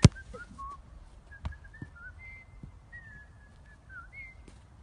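A football kicked hard: one sharp thump right at the start, then a second, softer thud about a second and a half later. Faint high whistling tones waver on and off in the background.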